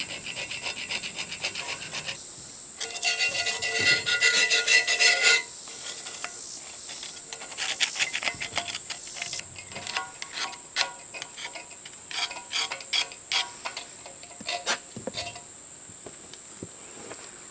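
Irregular hand scraping strokes as stripper-softened old paint is worked off the arbor press's metal body. A louder pitched sound runs from about three to five seconds in.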